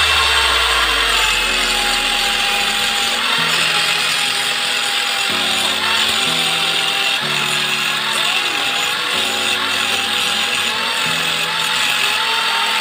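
Corded electric angle grinder running at full speed and grinding down the end of a stainless steel exhaust pipe held against its disc. Its high whine dips slightly in pitch each time the pipe is pressed in, then recovers.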